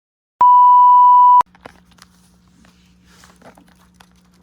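A loud, one-second electronic beep: a single pure tone at about 1 kHz that starts and cuts off abruptly. It is followed by a faint low hum with small, soft clicks and rustles.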